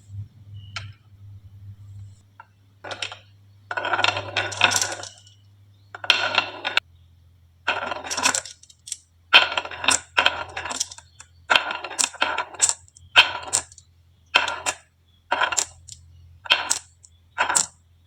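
Marbles clattering down a wooden HABA marble run, a series of sharp clacks, a dense cluster early and then regular clacks about one to two a second as they drop from one track section to the next.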